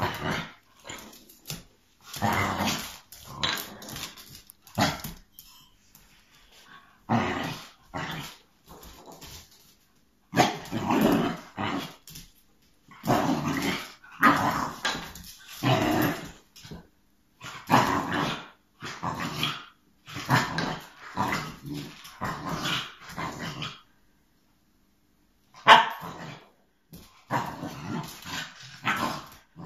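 Young dog barking and growling in repeated bouts, with short pauses between, while it plays with a beef bone: frustrated play at a bone it cannot get hold of.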